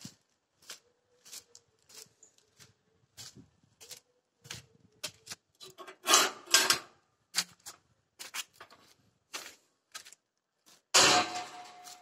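Footsteps of a person walking slowly, about one and a half steps a second, with louder scuffing and rustling about six seconds in and again near the end.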